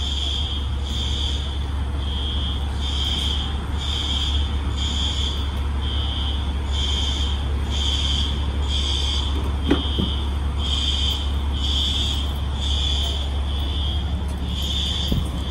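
Building fire alarm sounding, a high-pitched electronic tone pulsing on and off a little more than once a second, over a steady low hum. A single faint click comes about two-thirds of the way through.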